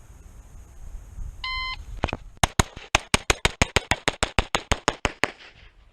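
A shot timer gives one short beep. About half a second later a Beretta 92 Elite LTT 9mm pistol fires a fast string of about seventeen shots, roughly six a second, which stops about three seconds later.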